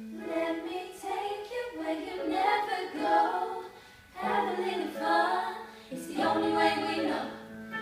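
A group of five young female voices singing a slow pop ballad in harmony into handheld microphones, with short breaths between phrases about four and six seconds in.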